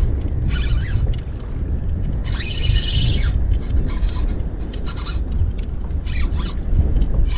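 Wind rumbling on the microphone, broken by several short rasping bursts from a fishing reel as a strong fish is fought and line is pulled off or wound in.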